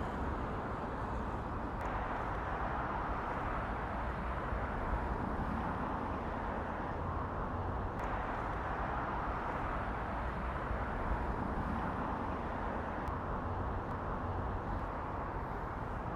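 Steady hum of distant road traffic, an even wash of noise with no single vehicle standing out.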